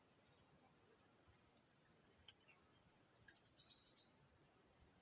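Steady, high-pitched chorus of insects in the forest, a continuous shrill trill.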